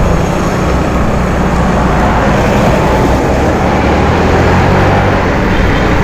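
Yamaha Mio i 125 scooter's single-cylinder four-stroke engine running while being ridden through traffic, under a steady, loud rush of road and wind noise.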